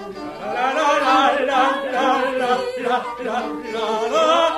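A group of voices singing a song together in chorus.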